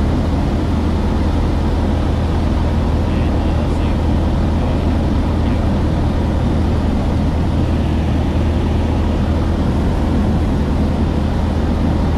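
Maule light aircraft's piston engine and propeller droning steadily, heard inside the cockpit with rushing wind noise.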